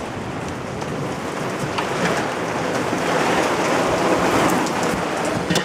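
Heavy rain and hail hitting surfaces in a thunderstorm, growing louder through the middle, with a sharp knock near the end.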